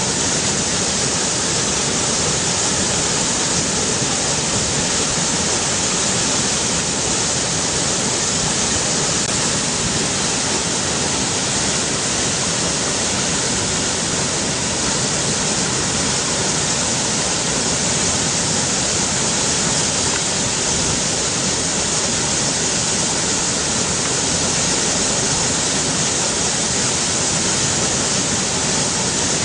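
River water rushing steadily, a constant, unbroken hiss.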